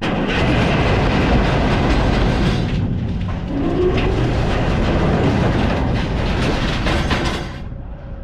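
A load of scrap metal clattering and grinding as it moves, a loud dense rumble that starts suddenly and dies away about seven and a half seconds later.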